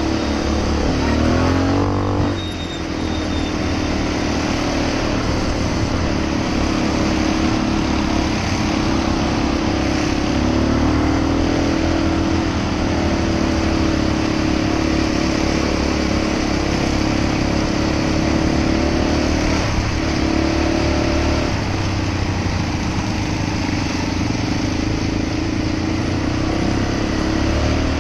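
Small ATV engine running under way, heard from on board while riding. Its pitch climbs over the first couple of seconds, drops briefly, then rises and falls gently with the throttle for the rest of the ride.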